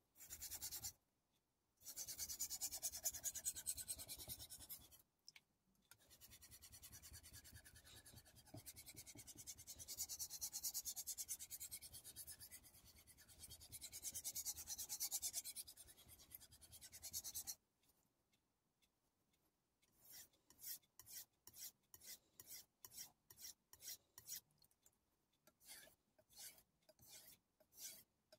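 Steel chef knife blade being stroked back and forth on a wet King 6000-grit finishing whetstone, a soft wet scraping, while the edge is polished. Long runs of continuous strokes come first, then after a short pause quicker separate strokes, about two a second.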